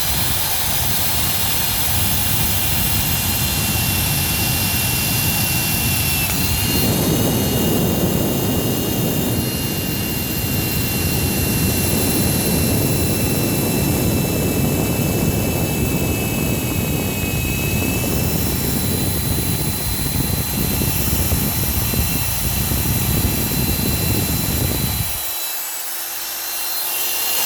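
Black & Decker electric drill with a metal bit running and drilling into a bicycle's cracked steel seat tube: a steady high motor whine over a grinding rasp. Near the end the grinding stops and only a lower motor hum runs on.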